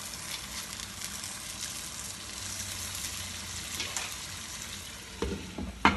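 Chicken karahi sizzling steadily in the pan with a glowing charcoal set in it to smoke the dish. Two sharp knocks come near the end and are the loudest sounds.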